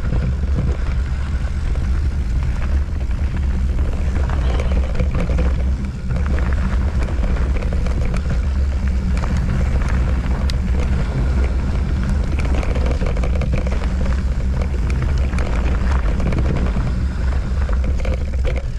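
Mountain bike descending a rocky trail: a steady low rumble of wind over the camera microphone, with light rattling and clicks from the bike running over rocks.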